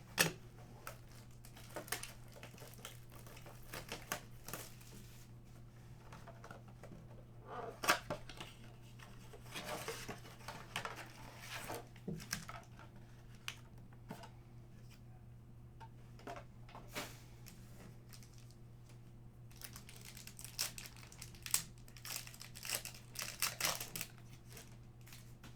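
Crinkling and tearing of trading-card pack wrappers and the box's packaging, with cardboard rubbing and small taps in irregular bursts, as a basketball card blaster box is opened.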